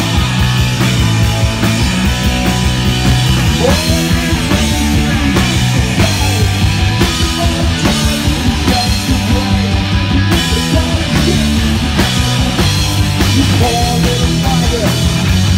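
Live punk rock band playing loud and steady: distorted electric guitar, bass and drum kit.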